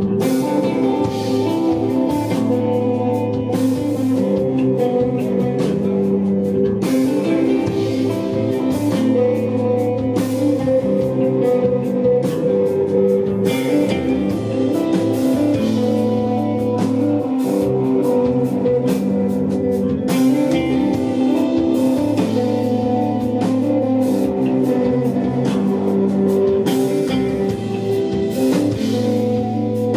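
Desert rock band playing live: laid-back, instrumental-sounding electric guitar over bass and a drum kit, steady and loud.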